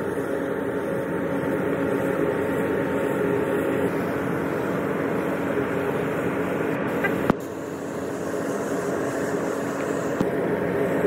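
Steady rushing hiss of a gravity-feed spray gun spraying paint, over the steady hum of paint booth ventilation. A sharp click comes about seven seconds in, after which it is briefly a little quieter.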